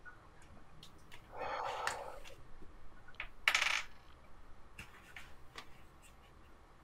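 Handling noise: a scattered run of light clicks and taps with two short rustling bursts, the louder one about three and a half seconds in, as small objects are moved near a microphone.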